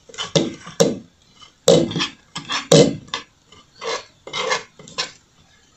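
Metal spoon scraping thick rapadura-and-peanut candy off the sides of a cast-iron pot in a series of irregular rasping strokes, with a few sharp clinks of metal on iron. The candy is drying and sticking to the pot's edge as it begins to sugar.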